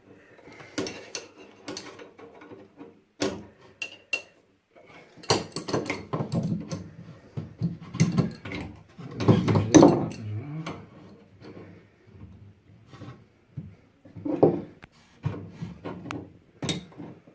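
Adjustable spanners clinking and knocking on a radiator's compression fittings: irregular sharp metallic clicks and clunks, busiest and loudest in the middle stretch.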